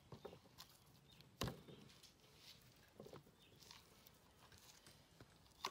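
Faint knife-and-meat handling sounds: a butcher's knife working through a deer hindquarter on a wooden cutting board, with scattered light clicks and a sharper knock about a second and a half in and another near the end.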